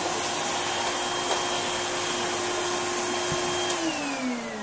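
Vintage Hoover vacuum cleaner motor running steadily with a steady whine. About three-quarters of the way through there is a click, and the whine falls away as the motor runs down after being switched off.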